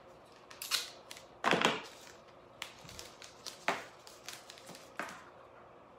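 Yellow FrogTape painter's tape being pulled off its roll: a handful of short rasps, the longest and loudest about a second and a half in.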